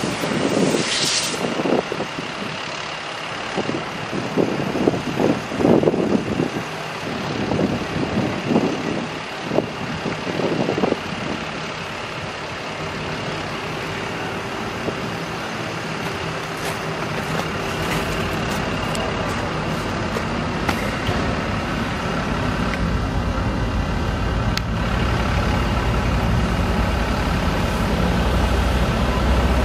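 Wind gusting on the microphone, then the heavy Caterpillar C9 diesel engine of a Sterling LT8500 water truck running steadily and growing louder as the truck comes closer.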